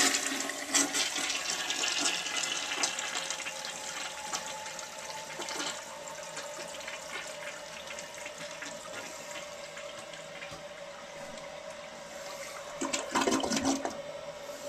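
Toilet flushing: a sudden rush of water that eases off over several seconds into the steady hiss of the tank refilling, with a held tone. A short, louder rush of noise comes near the end.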